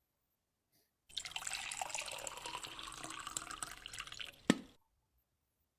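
Wet canned cat food in runny broth squelching and dripping as it is worked, with many small wet clicks and one sharp tap about four and a half seconds in.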